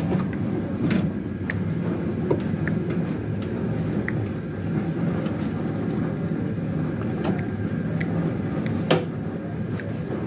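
Steady low machinery hum, with a few sharp metal clicks and knocks, the loudest near the end, as a steel bowl and wire whisk are fitted onto a commercial planetary mixer.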